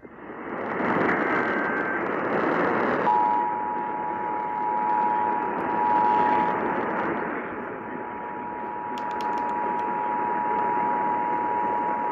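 Emergency Alert System two-tone attention signal (853 Hz and 960 Hz together) received over a radio, starting about three seconds in and holding steadily over loud radio static, which comes first on its own.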